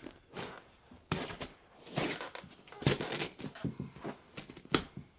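Irregular rustling, scraping and tearing of a recliner's cloth upholstery and foam padding being pulled and cut away by hand, with a few sharp clicks.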